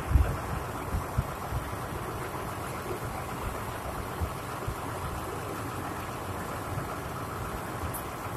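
The engine of an exploratory drill machine running steadily, with a few low thumps in the first couple of seconds.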